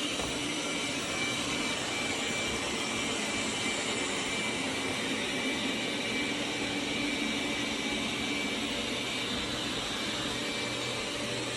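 Roborock Q7 Max robot vacuum running, its suction motor giving a steady whir with a faint high whine.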